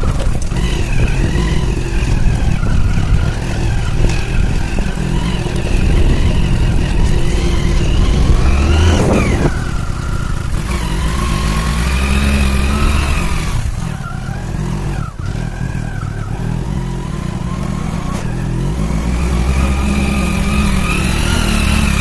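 Motorbike engine running as the bike rides up a rough dirt track, its pitch rising and falling with the revs over a steady low rumble.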